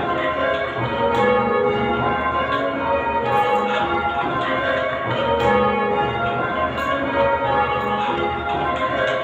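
A ring of eight Whitechapel-cast church bells, tenor about 10 cwt in A-flat, rung full circle in an even, continuous rhythm of strikes, each bell's note ringing on under the next. No change has yet been called, so the bells are still in rounds.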